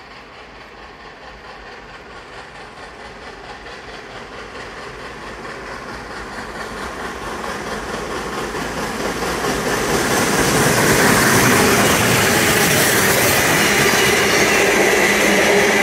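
Double-headed steam locomotives, NSW 32 class 3265 and 35 class 3526, working a heritage passenger train under steam. The sound grows steadily louder as they approach for about ten seconds, then holds loud as the engines pass close by.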